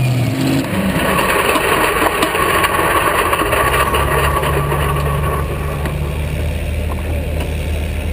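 Supercharged V8 engine of a modified tractor-pulling tractor idling, heard close up, with a steady low note that shifts about half a second in.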